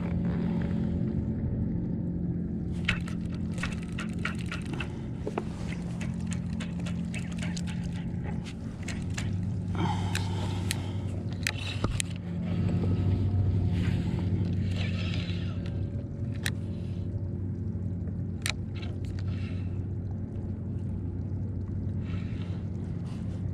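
Handling noise from a Penn spinning reel and rod worked close to the mic while a snagged line is being worked free: scattered sharp clicks and scrapes over a steady low hum.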